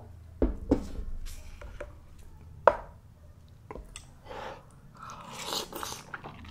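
Close-miked eating of spicy mala tang: chewing with several sharp clicks, the loudest about two and a half seconds in, and softer wet stretches near the end.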